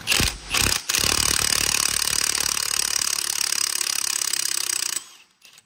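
Milwaukee Fuel cordless impact wrench hammering on a 35 mm socket: two short bursts, then a steady run of about four seconds that cuts off suddenly. It is driving the bolt of a gear puller to pull the diff pinion gear off the shaft of a Subaru 4EAT transmission.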